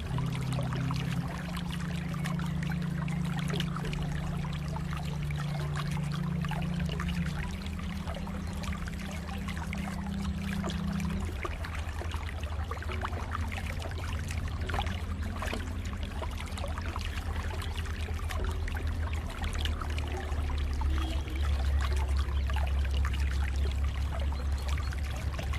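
Lake water trickling and splashing steadily. Underneath runs a low steady hum that shifts pitch a few times in the first half.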